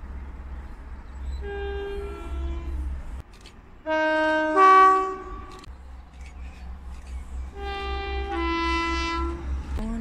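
Two-tone horn of an approaching Class 390 Pendolino electric express train, sounded as three two-note blasts about three seconds apart. The middle blast is the loudest.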